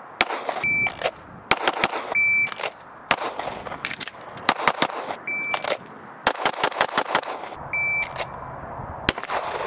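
Shot timer start beeps, about four times, each followed by shots from a Shadow Systems DR920 9mm pistol. The shots come singly or in quick strings of a few.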